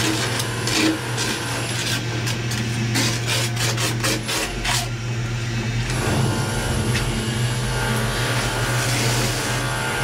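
Tools scraping and rubbing on a hard surface, over a steady low hum: a run of short strokes about two seconds in, then a more continuous rasping from about six seconds on.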